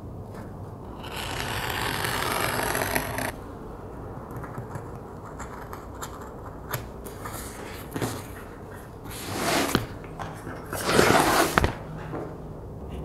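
Scratch awl and leather being worked on a cutting mat: scraping and rustling as the leather is marked through a template and the sheets are handled. There is a longer stretch of scraping about a second in, and louder scraping again near the end.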